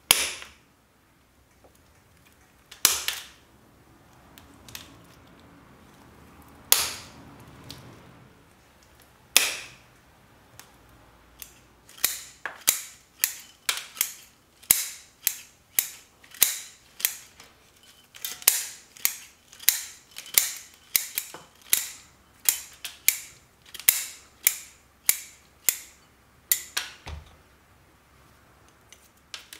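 Steel bonsai shears snipping through the roots of a Japanese maple bonsai: four sharp, spaced cuts, then a quick run of snips, about two a second, through the fine roots.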